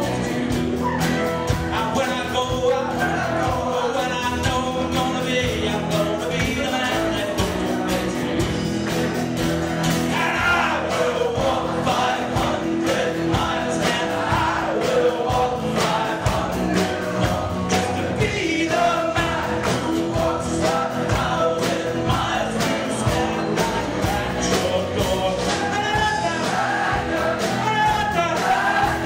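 Live rock band playing: a man singing lead over acoustic and electric guitars, with steady drum hits throughout.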